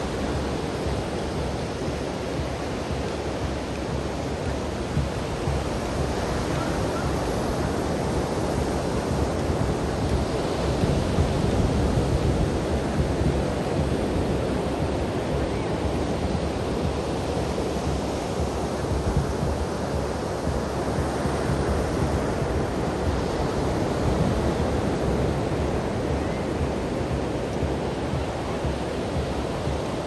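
Surf from small waves breaking and washing up a sandy beach: a steady rush that swells and eases, loudest about ten to thirteen seconds in.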